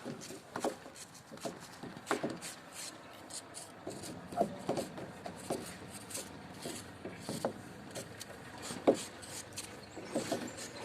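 Scattered light knocks and clicks at irregular intervals, with some rubbing or scraping between them.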